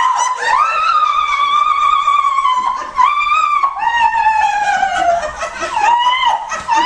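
A woman crying and wailing in long, high-pitched cries, several of which slide downward in pitch: an outburst of emotion.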